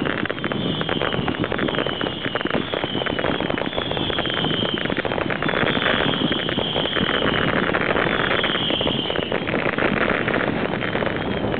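Consumer aerial fireworks going off several at a time: a dense, rapid crackle with a string of high whistles, each about a second long, over heavy wind noise on the microphone.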